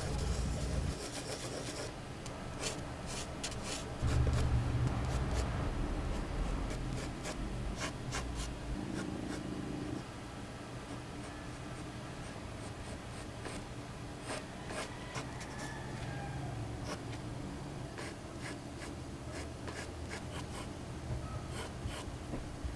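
Graphite pencil drawing on paper: a run of short, scratchy sketching strokes as the outline of a face and its guidelines are laid down. There is a louder, dull low bump or handling noise about four seconds in.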